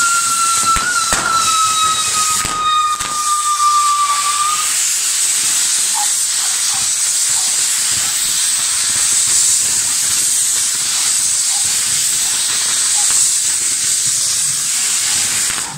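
Fireworks castle (castillo) burning: the lit fountains on its frames spray sparks with a steady, loud hiss. A whistling firework holds a slowly falling tone for the first four seconds or so, and a few pops come through early on.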